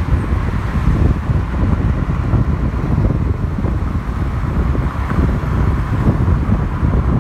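Airbus A320neo jet flying overhead, its CFM LEAP-1A turbofans making a steady rumbling roar, with wind buffeting the microphone.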